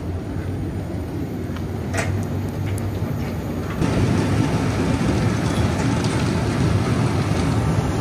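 Potato handling line running: a reception hopper and belt conveyors carrying freshly dug potatoes up an elevator into the store, a steady mechanical rumble with a low hum. A short knock about two seconds in, and the rumble gets louder from about four seconds in.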